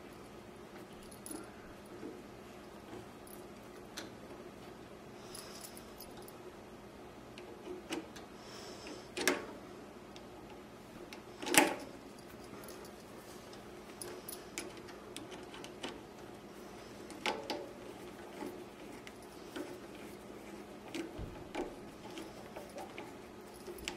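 A screwdriver and small screws clicking and clinking against the metal hook assembly of a Cowboy CB3200 leather sewing machine as the retaining screws are driven back in. Sparse light clicks with a few sharper clinks, the loudest about halfway through, over a faint steady hum.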